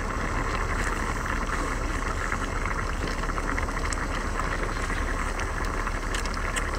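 A pan of spicy seafood stew boiling steadily on its burner, a continuous bubbling over a steady low rumble.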